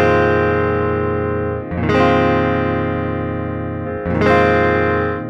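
Clean, unprocessed electric guitar on the neck pickup: a chord strummed and left to ring out, struck again about two seconds in and again about four seconds in, each slowly fading. It is a sustain and dead-spot test of newly installed frets.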